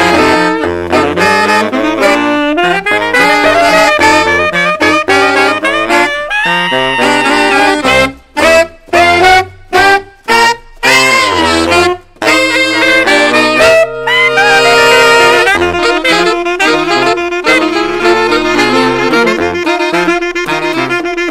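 Saxophone quartet with a baritone saxophone on the bottom line, playing a jazz piece. Around the middle come several short, punchy chords with brief silences between them, then longer held notes.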